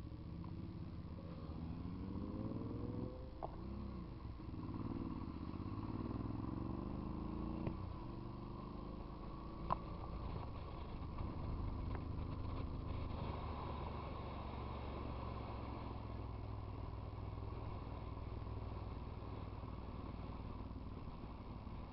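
Large motorcycles riding in a group, engines rising and falling in pitch over the first several seconds as they accelerate and shift, then running at a steadier pace. A few sharp clicks, the loudest about ten seconds in.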